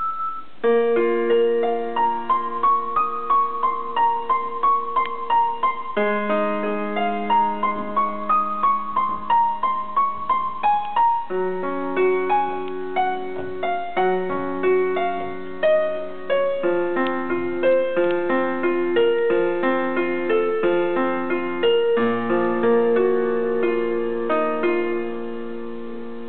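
Piano music accompanying a dance: a melody of quick notes rises and falls over held chords that change every few seconds. It starts just under a second in.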